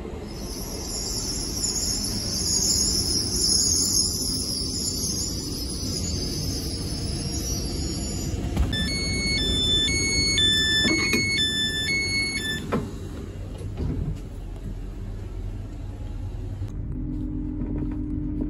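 LNER Azuma (Hitachi high-speed train) drawing in alongside the platform with a rumble and a steady high-pitched whine. About halfway through, its door warning beeps sound, a run of alternating electronic tones for about four seconds as the doors are released. Near the end there is a quieter interior hum with a low steady tone.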